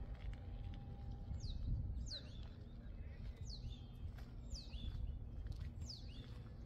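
A bird calling over and over: five short whistled notes, each sweeping sharply down in pitch, about a second apart. Under them runs a low rumble.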